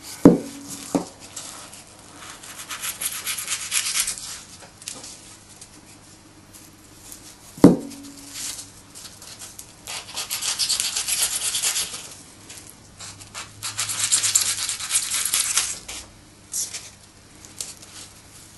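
Blade shaving and rubbing a block of foam to round it off, in three stretches of hissy scraping. There are sharp knocks near the start and a louder one a little before the middle.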